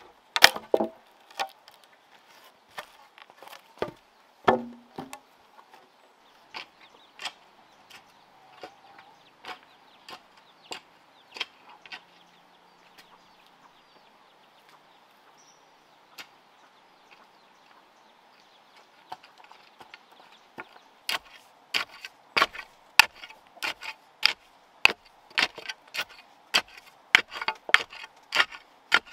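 Sharp wooden knocks and chops, a few loud ones at the start and sparse ones after, then a quick run of strikes about two a second near the end as earth is rammed down around a wooden post with a stick.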